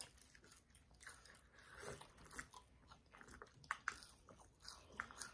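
Faint chewing and crunching of French fries, with scattered short crisp clicks.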